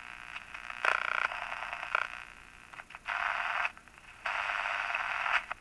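Panasonic R-111 AM transistor radio's small speaker giving out bursts of static: a short buzz about a second in, then two longer stretches of hiss in the second half. The noise is interference that the owner puts down to the camera and computer running nearby.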